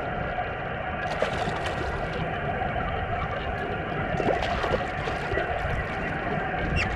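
Ocean water lapping and gurgling against a kayak's hull, a steady noise.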